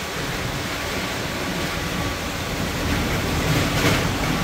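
Steady, low rumbling workshop background noise with no distinct event, and a few faint sharper sounds about three to four seconds in.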